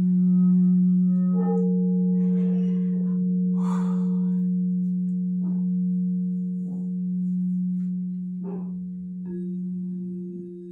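Frosted quartz crystal singing bowls ringing in long sustained tones: a low steady tone holds throughout, a higher bowl tone joins about a second in and fades away, and another tone comes in near the end, the whole slowly dying down.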